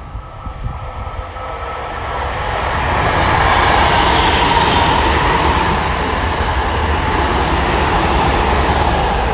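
Tokyo Metro 7000-series electric commuter train passing close at speed. The sound builds over the first few seconds, then holds as a steady, loud rolling of wheels on rails with a low rumble under it.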